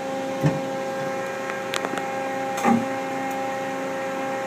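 Steady hum of a 1997 Mazak Quick Turn 20 CNC lathe standing powered up, with a few short knocks: one about half a second in, a light one a little before two seconds, and a louder one near three seconds.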